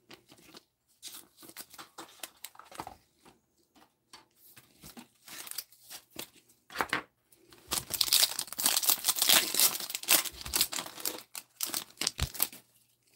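Foil wrapper of a Monopoly Prizm basketball card pack being torn open and crinkled. The tearing and rustling is loudest in a dense spell starting about eight seconds in and lasting about three seconds. Before it come light scattered rustles and clicks of cards being handled.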